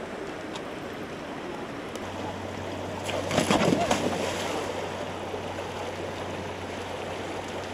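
Rushing stream water throughout. About three and a half seconds in, a mountain bike and its rider fall into the stream with a loud splash and a quick run of knocks.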